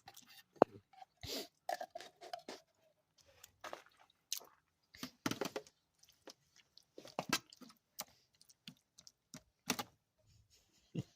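A spoon scraping and clacking in a pan while spreading thick canned chili over a layer of cocktail smokies, in irregular short strokes with one sharp clack about half a second in.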